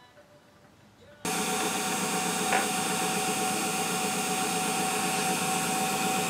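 Small bench drilling machine, an Emco Unimat SL set up as a drill, running its motor with a steady whine while a fine bit drills a small brass part. The motor starts abruptly about a second in and runs until the very end, with a single short tick partway through.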